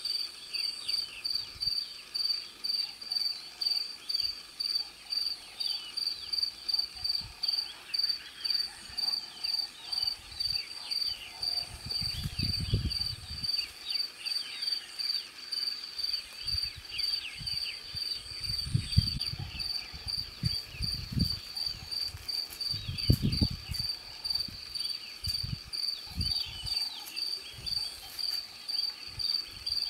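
A cricket chirping at an even pace, about two high chirps a second, with fainter scratchy calls behind it and a few brief low rumbles around the middle.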